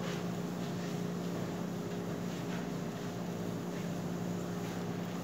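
Steady machine hum with a low drone, unchanging throughout, with a few faint soft taps.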